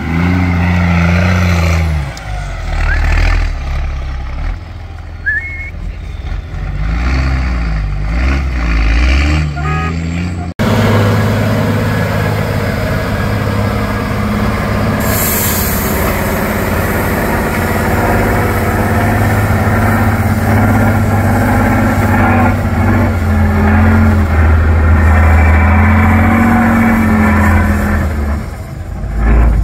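Heavy off-road trial trucks' diesel engines working under load as they climb and crawl through mud, the revs rising and falling. About ten seconds in there is an abrupt switch to a second truck's steadier, heavier engine note, and a brief hiss sounds a few seconds later.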